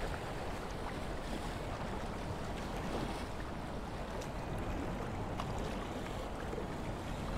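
Steady rush of water at a spillway: an even hiss with a few faint clicks scattered through it.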